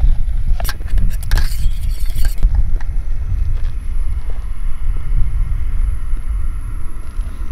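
Wind buffeting the microphone in a steady low rumble. A few metal clinks and scrapes of a spoon against a small cooking pot come in the first couple of seconds.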